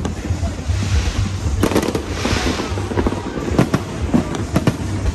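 Aerial fireworks display going off: repeated sharp bangs, with a burst of crackling hiss about two seconds in.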